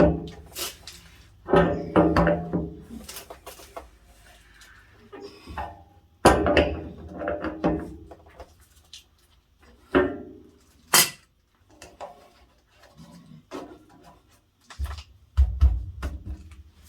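Irregular knocks and metallic clatter of hand tools and fittings being handled while plumbing connections are worked on, with a few louder strokes among quieter clinks.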